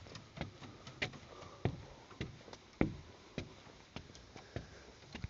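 A person's footsteps walking at a steady pace, about one crisp step every 0.6 s.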